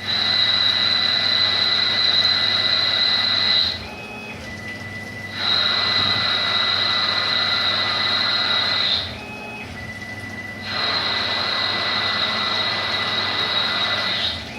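A CNC lathe machining stainless steel runs three cutting passes of about four seconds each. Each pass has a steady high whine over a hiss, and a quieter stretch with a lower steady tone falls between the passes.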